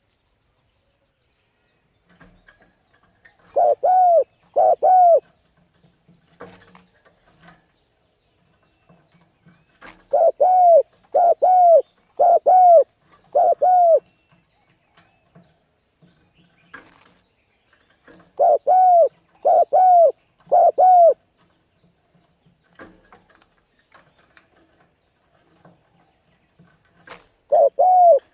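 Spotted dove cooing in short phrases of two to four deep, arching coos, with pauses of several seconds between phrases.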